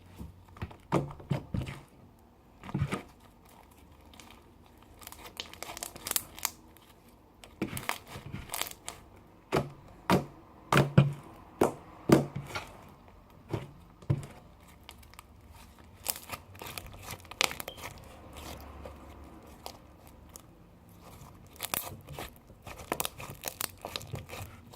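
Homemade slime made of white Elmer's glue and clear glue being kneaded, stretched and squeezed by hand, giving irregular sticky clicks, pops and crackles.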